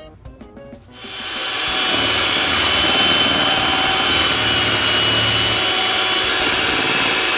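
Electric hand mixer switched on about a second in and running steadily with a motor whine, its beaters churning brownie batter of eggs, oil and boxed brownie mix.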